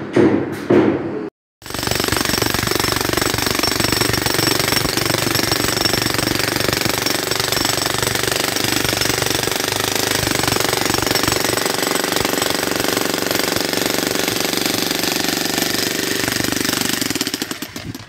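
A few evenly spaced knocks, then, after a short break, a construction power tool hammering rapidly and steadily, fading out near the end.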